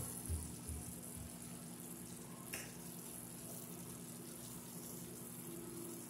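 Chicken nuggets in sauce simmering in a frying pan: a steady, soft sizzling hiss over a low hum, with a few soft bumps in the first second and a faint click about two and a half seconds in.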